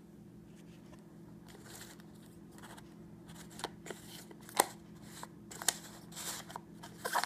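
Shredded paper packing rustling and crinkling in a clear plastic deli cup as a hand digs into it, with a few sharp clicks of the plastic. It starts about a second and a half in, over a steady low hum, and the loudest click comes a little past the middle.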